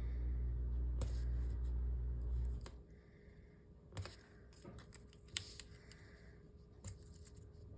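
A low steady rumble that stops abruptly a little under three seconds in, then faint scattered clicks and taps of stickers and planner pages being handled.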